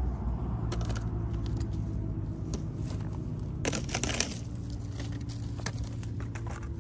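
Plastic litter crinkling and rustling as it is picked up with a litter grabber, with scattered short crackles and a louder burst about four seconds in. A steady low rumble runs underneath.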